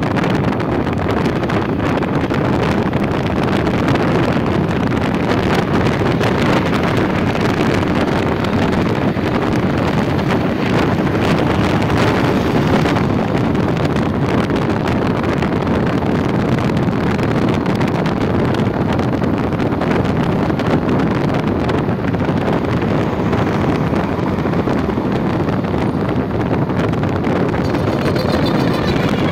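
Steady wind rushing over the microphone on a moving motorcycle, mixed with the bike's engine and road noise.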